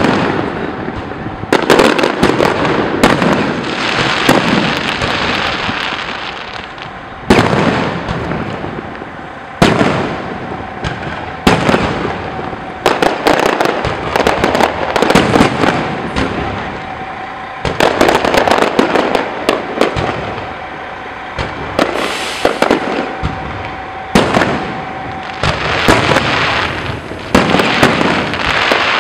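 Aerial fireworks shells bursting in quick succession: loud sharp bangs every second or two, each trailing off in crackle and echoing rumble, with several bursts packed close together near the end.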